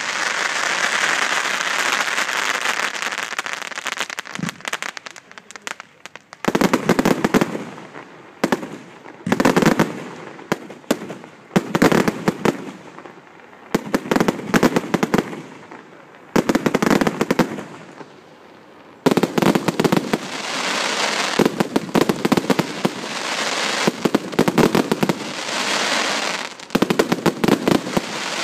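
Fireworks display: aerial shells bursting in rapid bangs and crackles. It opens with a few seconds of steady hissing crackle, then comes in volleys every two to three seconds, and the last third is a near-continuous barrage.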